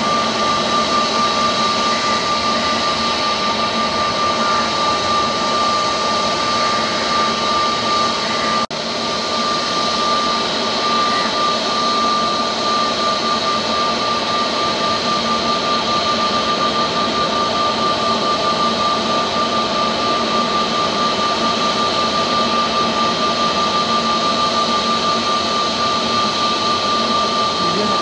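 Airbus A320neo jet engines (CFM LEAP-1A) running steadily, a loud even rush with a constant high whine; the sound drops for an instant about nine seconds in.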